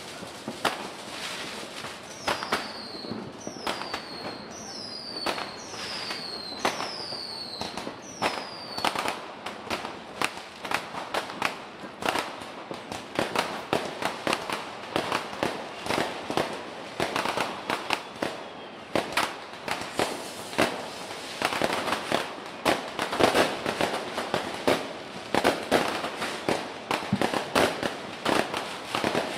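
New Year's Eve fireworks and firecrackers banging and cracking, scattered at first and growing denser and louder from about halfway through. Early on, several high whistles fall in pitch, one after another, from whistling fireworks.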